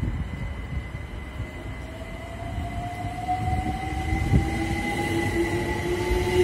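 London Overground Class 378 electric multiple unit arriving at the platform and slowing, with a low rumble of wheels on rail under a steady high electric tone and a whine that rises slowly in pitch. A single knock sounds about four seconds in.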